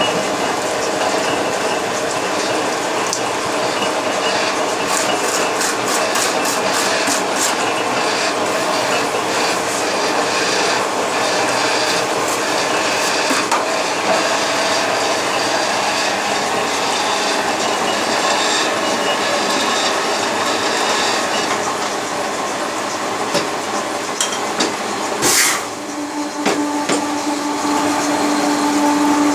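A belt-driven heater-collar making machine running with a continuous mechanical clatter as a sheet-metal collar turns on its rotating head. A run of rapid clicks, about four a second, comes several seconds in. Near the end there is a brief sharp hiss, followed by a steady hum.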